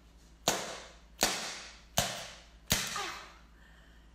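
Four sharp, hard cracks about three-quarters of a second apart, each trailing off quickly: cooked brown crabs' hard shells being knocked in an attempt to crack them open, the shell too hard to give.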